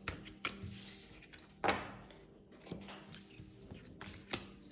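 Light clicks and knocks of cards and objects being handled on a tabletop, about six separate taps with the loudest about a second and a half in, over a faint steady hum.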